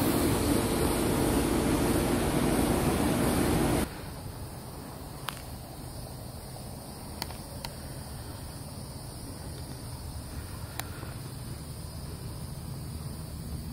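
A steady hum with hiss, like a running machine, cuts off sharply about four seconds in. It leaves faint outdoor background noise with a few soft clicks.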